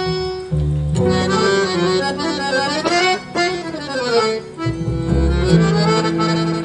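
Live ensemble music led by accordion, over piano and double bass; the melody slides up and then down in pitch about halfway through.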